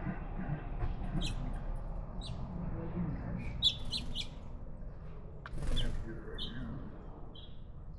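Small birds chirping: scattered short, high notes, some in quick clusters, with a brief louder burst of noise about five and a half seconds in.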